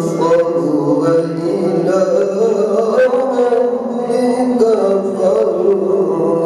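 A man's voice reciting the Quran in melodic tajwid style (tilawat), in long wavering, ornamented lines with barely a break.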